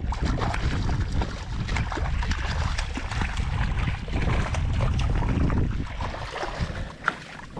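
A hooked redfish thrashing and splashing at the surface beside the boat, over wind buffeting the microphone. The splashing dies down about six seconds in as the fish goes into the landing net, and a single sharp click follows near the end.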